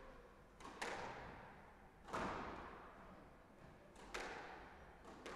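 Squash racket striking the ball and the ball smacking the front wall in a solo rally: three sharp cracks about two seconds apart, each with a small click just before it and ringing out in the hall.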